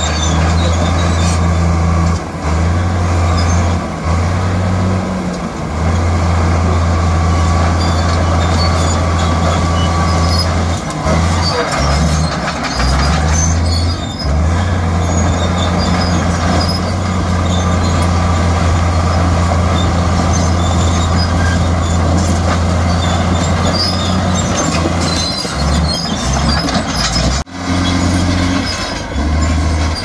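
Heavy diesel engine of an earthmoving machine working under load, a loud steady low drone that dips briefly now and then, with scattered higher clatter. It breaks off sharply near the end and resumes with a different tone.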